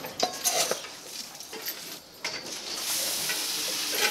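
A few short clatters, then grain feed poured from a scoop onto hay at the cows' feed trough, a steady granular rush from about three seconds in.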